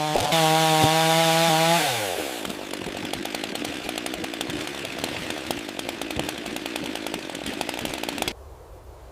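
A power carving tool's motor running at a steady high pitch, then winding down with falling pitch about two seconds in, followed by rapid rasping and scraping on wood that stops suddenly near the end, leaving a few light taps.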